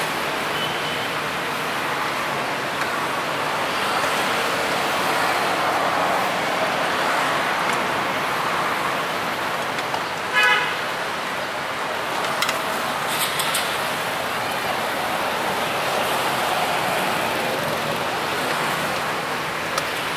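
Steady street traffic noise, with a short vehicle horn toot about ten seconds in.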